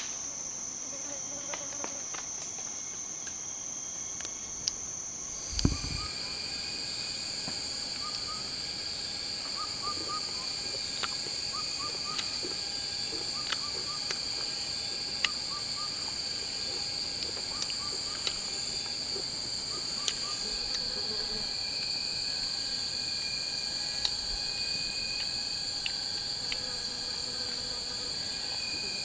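Steady, shrill chorus of forest insects, dropping to a lower pitch about six seconds in. Sharp light knocks come every second or two, with a dull thump where the chorus changes, and short chirping calls in the middle.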